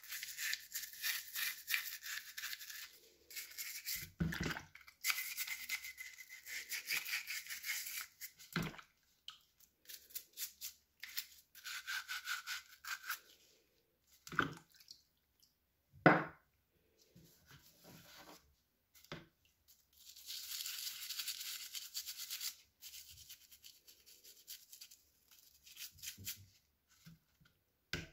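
Toothbrush bristles scrubbing the brass burner of an old blowtorch in a bowl of cleaning liquid, in bursts of rapid back-and-forth strokes. A few short knocks come between the bursts, the sharpest about halfway through.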